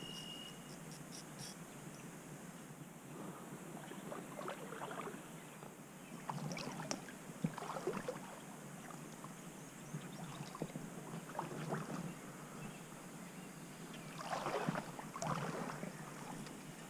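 Faint, intermittent splashing and lapping of river water in the shallows, with a few soft knocks; the clearest splashes come twice, near the middle and again near the end.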